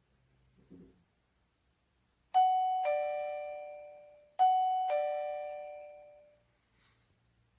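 SECRUI wireless door chime receiver playing a two-note ding-dong, high then low, twice, each note ringing out and fading. It is the alert that the door contact sensor has been opened.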